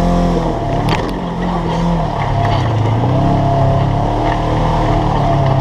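UTV engine working under load while crawling up bare rock, its pitch dipping and rising as the throttle is eased and applied, with a sharp knock about a second in.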